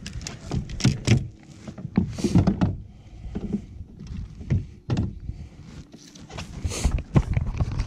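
Irregular knocks, thumps and rustles as a freshly caught largemouth bass and a measuring board are handled against a fishing kayak's hull and deck.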